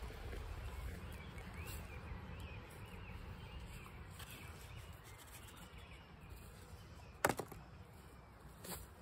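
Faint garden ambience with birds chirping now and then in the first half; a sharp knock about seven seconds in and a smaller one near the end.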